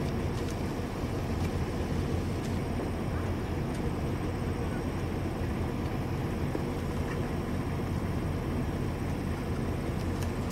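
A vehicle driving slowly on a gravel road, its engine and tyres making a steady low rumble.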